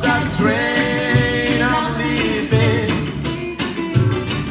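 Live band music: held sung notes over acoustic and electric guitars, bass, keyboard and cajón, with a steady beat.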